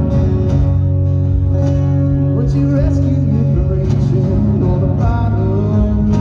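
Live band music: a strummed acoustic guitar with an electric guitar, playing steadily.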